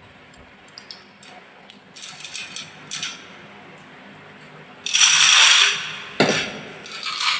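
Marbles rolling and clattering down a HABA wooden marble run: scattered clicks, then rattling runs. A louder rush of rattling comes about five seconds in, a thud just after six seconds, and more clattering follows.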